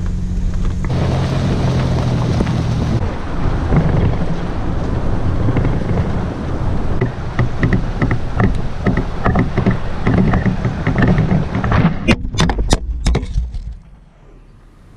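Pickup truck driving down a rough dirt four-wheel-drive road: engine running under a steady rumble of tyres on gravel. A run of knocks and rattles comes over the bumps in the second half, loudest a little before the end, then the sound drops suddenly to a quiet background.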